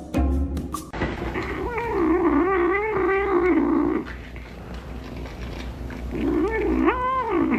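A pet animal's long, wavering yowling cry lasting about two seconds, then a shorter call near the end that rises and falls.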